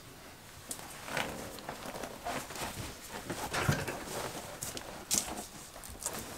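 Cloth cushion cover rustling and a foam cushion rubbing and bumping against it as the foam is stuffed into the cover, in irregular brushes and soft thumps.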